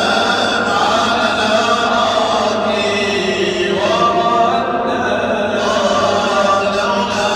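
Men's voices chanting a devotional recitation in a mosque, with long held notes and a rising glide in pitch about four seconds in.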